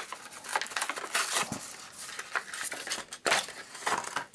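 Plastic blister packaging and card being pulled off a Hot Wheels die-cast toy car by hand: irregular crinkling and crackling with clicks, and sharper snaps about a second and a half in and again about three seconds in.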